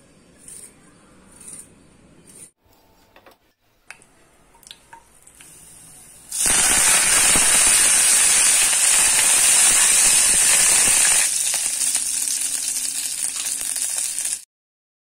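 Curry leaves and garlic sputtering in hot oil in a kadai. A loud sizzle starts suddenly about six seconds in, eases a little after about five seconds and keeps sizzling until it cuts off near the end.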